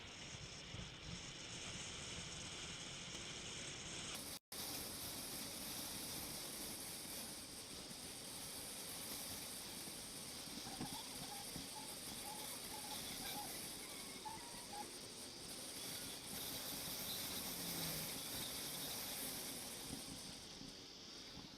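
Steady hiss of wind and road noise on a motorcycle helmet camera's microphone while riding, with a brief total dropout about four and a half seconds in.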